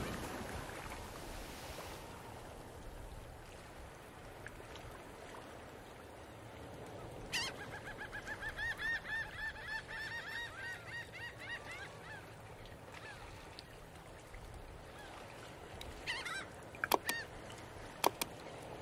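Geese or similar waterfowl honking: a quick run of repeated calls from about seven to twelve seconds in, with a few sharp clicks near the end.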